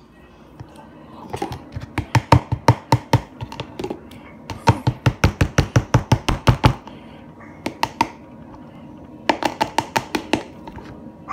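A small plastic cup being knocked and shaken by hand to empty sticky glitter glue into a jar: quick knocks, about six a second, in three runs of one to two seconds each.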